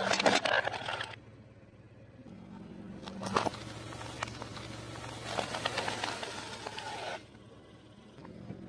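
A car tyre rolling over and crushing things on concrete. A short loud crunch comes at the start, then about five seconds of crackling and snapping with a few louder cracks as the tyre grinds over hard twisted lollipop candy.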